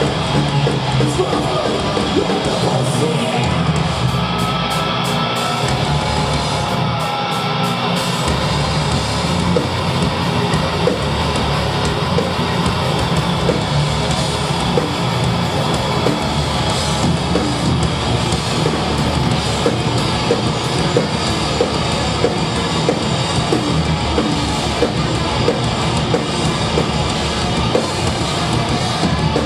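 Death metal band playing live: heavily distorted electric guitars over bass and drums, with fast, dense drum hits. The bottom end thins out twice in the first eight seconds before the full band plays on.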